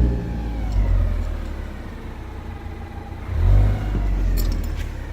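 Ford Focus ST engine blipped twice, about three and a half seconds apart, with a fainter whine rising and falling with the revs: an unexplained whining noise that the owner is asking about.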